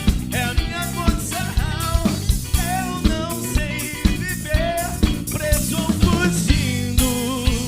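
Pop-rock band playing: a drum kit keeping a steady beat with bass and electric guitar, a melodic line bending in pitch on top.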